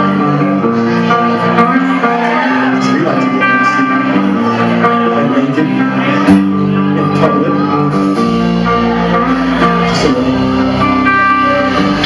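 Live band playing the instrumental intro of a love song, with guitar chords; a fuller low end comes in about eight seconds in.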